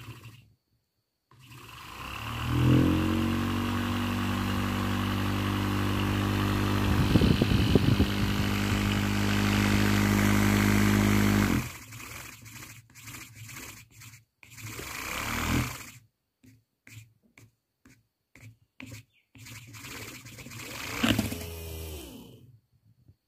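775 DC motor spinning a nebulizer's air piston compressor through a drill chuck. It spins up about two seconds in and runs at a steady speed with an even pitched hum, rattling briefly partway through. It cuts off suddenly at about twelve seconds, then gives a string of short stop-start bursts, two of which wind down in pitch.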